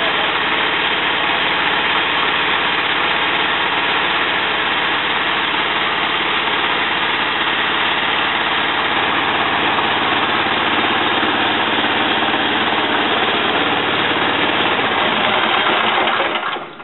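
Small stationary petrol engine running steadily, turning a homemade radial engine through a belt drive so that the radial's pistons and gears run with it, smooth and well balanced. Near the end the sound drops away as the run stops.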